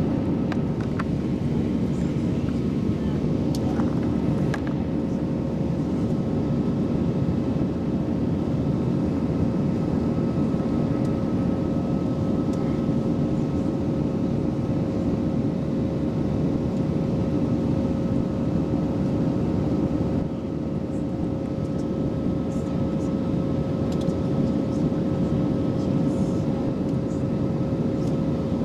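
Steady cabin noise of an airliner in flight after takeoff: a deep, even rumble of engines and airflow with a constant hum tone over it.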